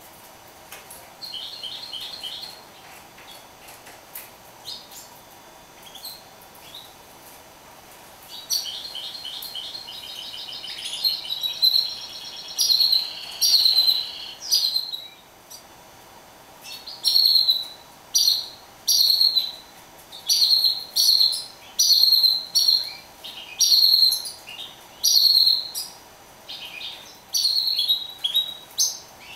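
Caged mule, a finch × canary hybrid songbird, singing: a few short trills at first, then a long run of warbling song, then a string of loud, clipped phrases about one a second.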